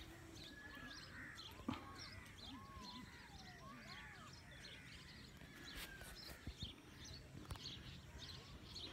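Several birds chirping and calling, short high chirps repeated over and over with some gliding lower notes, faint throughout. A few sharp knocks cut in, the loudest about two seconds in.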